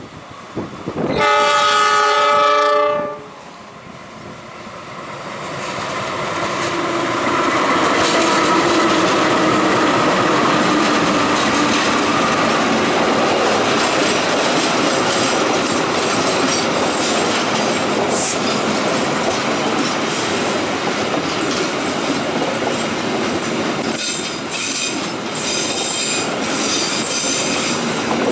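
A diesel locomotive's horn sounds one blast of about two seconds, then the train draws near and passes close by. The sound builds to a loud, steady rumble with the clickety-clack of passenger carriages on the rails, and sharp wheel clicks come near the end.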